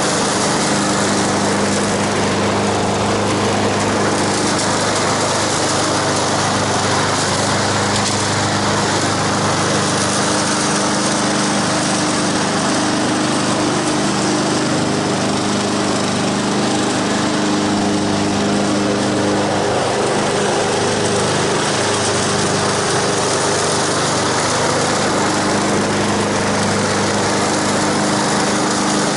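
Honda HRX217 walk-behind mower's single-cylinder four-stroke engine running steadily under load as it is pushed across the lawn, mulching dry leaves on the full-mulch setting.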